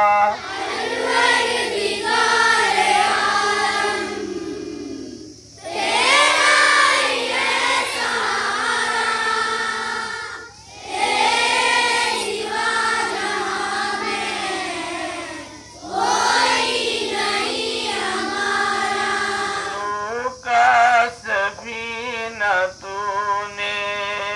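Schoolchildren singing a morning-assembly prayer song together in unison, in sung lines of four to five seconds with short breaks between them; over the last few seconds the singing breaks into short pieces.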